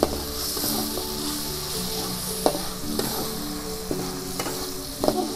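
Food sizzling as it fries in a wok over a wood fire, with a spatula scraping and knocking against the wok a few times.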